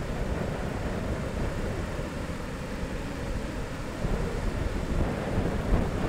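Rough ocean surf breaking on a beach, a continuous wash of noise, with wind buffeting the microphone as a gusty low rumble that grows stronger about four seconds in.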